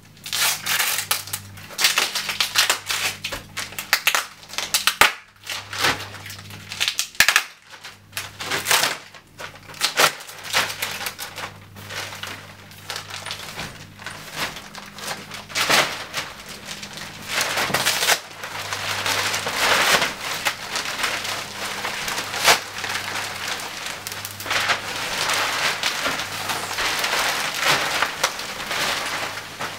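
Clear plastic wrapping crinkling and rustling as a rolled, vacuum-compressed mattress is unwrapped and handled: irregular crackles throughout, thickening into longer rustles in the second half.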